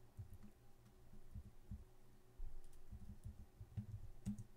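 Faint, irregular tapping of computer keyboard keys and mouse clicks, a scattering of soft taps and low thumps.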